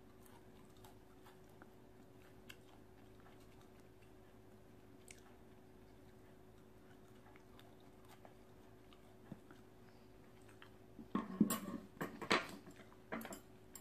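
Quiet room with faint scattered clicks, then near the end a short run of knocks and clatter as a glass bowl and metal chopsticks are handled on a wooden table.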